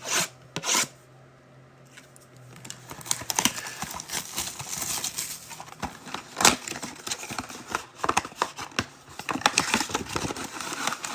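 A sealed box of trading cards being opened by hand. Two sharp knocks come right at the start, then plastic shrink-wrap and cardboard crinkle and tear steadily as the packs are pulled out.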